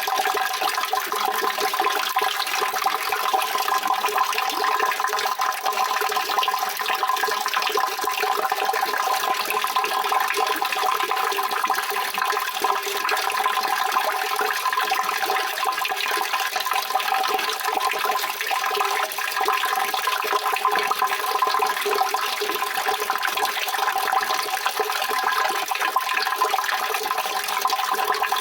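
Continuous rushing water, an even, unchanging wash of noise with a few steady ringing bands in the middle range.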